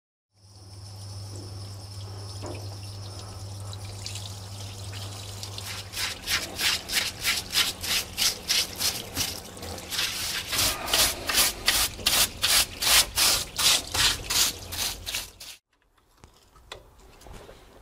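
Scrubbing the oily gearbox casing with a brush soaked in cold cleaner: after a steady low electric hum, regular rubbing strokes begin, about two or three a second, and everything cuts off suddenly near the end.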